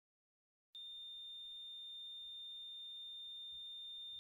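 Silence, then about a second in a faint, steady, high-pitched electronic tone sets in, with fainter steady tones above and below it.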